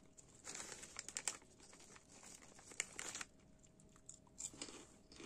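Plastic snack packet crinkling in the hand in a few short bursts as a piece is taken out of it.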